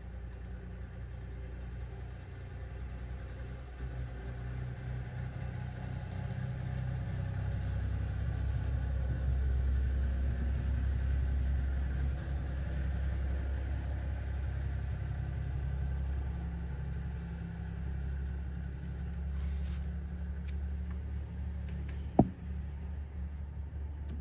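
A steady low rumble, swelling a little in the middle, with one sharp click near the end.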